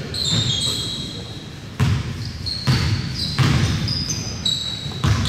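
A basketball bouncing on a gym floor, several thuds about a second apart, with short high squeaks of sneakers on the court.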